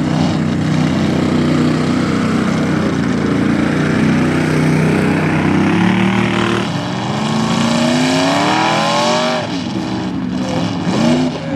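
Engine of a lifted Chevrolet pickup mud truck running hard at high revs in the mud, held fairly steady for several seconds. After an abrupt change about two-thirds of the way through, the engine revs up in rising sweeps, drops off, and gives a few short revs near the end.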